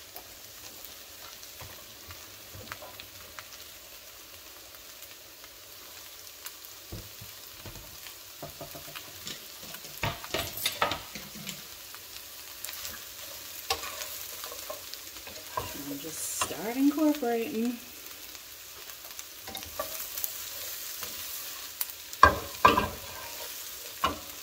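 Chopped cabbage frying in a hot skillet with bacon and onions: a steady sizzle throughout. A wooden spoon knocks and scrapes against the pan as the cabbage is stirred, with the loudest scraping about two-thirds of the way in and sharp knocks near the end.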